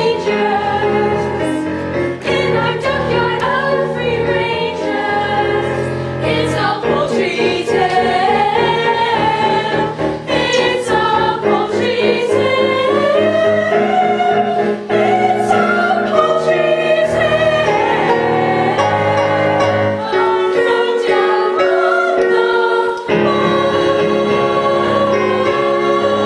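A musical-theatre ensemble singing together over instrumental accompaniment, with long held notes.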